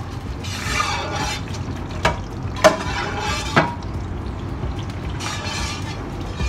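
A long-handled metal paddle scraping and stirring whole spices across the bottom of a stainless steel tilting braising pan, with three sharp knocks of the paddle against the pan in the middle.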